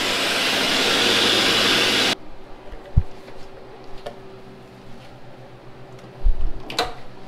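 Ninja countertop blender running at full speed, puréeing cauliflower, then cutting off abruptly about two seconds in. A few knocks and clicks follow as the blender jar is lifted off its base and handled, the sharpest near the end.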